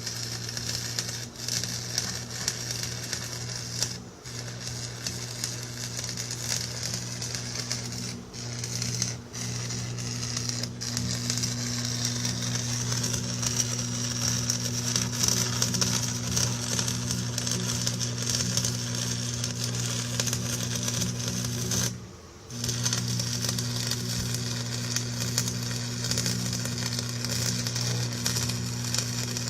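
Arc welding a steel patch into a tractor's rusted steel rear wheel rim: a steady crackling sizzle over a constant electrical hum. The arc breaks off briefly a few times, stops for about half a second some 22 seconds in, then starts again.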